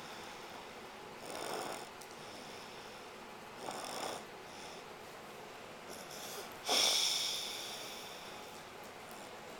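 A sleeping person snoring: three snores a few seconds apart, the third the loudest, starting suddenly and fading slowly.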